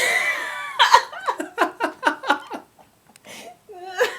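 Laughter: a loud drawn-out outburst, then a run of quick giggles at about four a second, and a softer laugh near the end.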